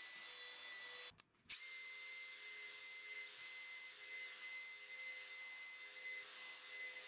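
Drill spinning a buffing pad over wax on a varnished wooden tabletop: a steady motor whine with a light rubbing hiss. It stops for about half a second just after one second in, then spins back up.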